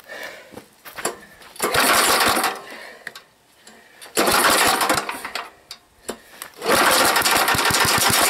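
Old 3,000-watt gas generator's small engine being pull-started, firing and running in three short bursts of a second or two each before dying again. It fires but is starved of fuel, with only a little gas funneled into the carburetor.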